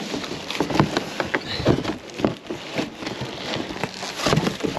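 Packaging crackling and rustling with irregular knocks as still-wrapped kayak paddles are handled.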